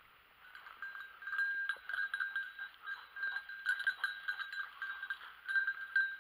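Bell on a hunting dog's collar jingling irregularly as the dog runs through dry bracken, getting louder about a second in, over a rustle of dry fronds.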